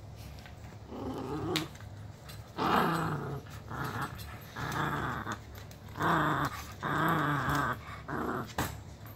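A small Portuguese Podengo growling in play while gripping and tugging a plush toy: a run of about seven short growls, one after another, starting about a second in.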